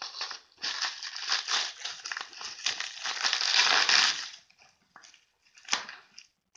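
Tape and wrapping on a heavily taped package being crinkled and torn off by hand, loudest about three to four seconds in, then stopping, with one sharp click near the end.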